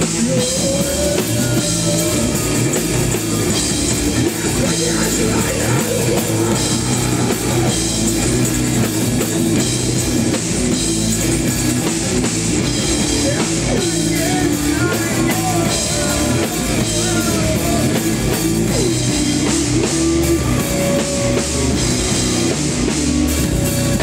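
Rock band playing live: drum kit and guitars in a passage without singing, with a guitar line bending in pitch.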